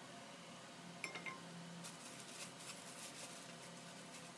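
Nonstick wok knocked against the gas stove's metal grate about a second in, a single sharp clink that rings briefly, then faint, irregular crackling as the oil heats in the pan.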